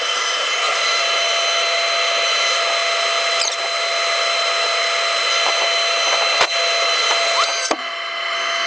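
Steady mechanical whine and hiss from a running machine, with two sharp clicks near the end.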